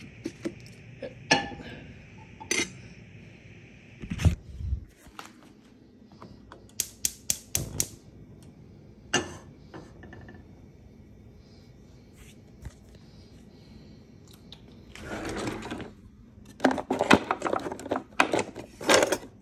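Kitchen clatter of pans and utensils being handled: scattered knocks and clinks, with a quick even run of clicks about seven seconds in and a busier stretch of clattering near the end.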